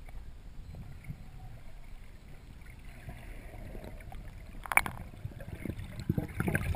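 Muffled underwater rumble of water moving past a camera housing as a freediver swims up toward the surface. About five seconds in there is a sharp knock, then short bubbling, splashing sounds near the end as the camera comes just below the waterline.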